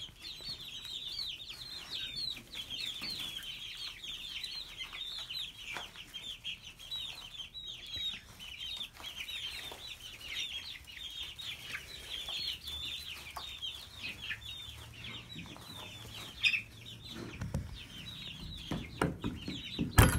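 A flock of young chickens peeping constantly, many short high calls that slide downward and overlap one another. A few low thumps come near the end.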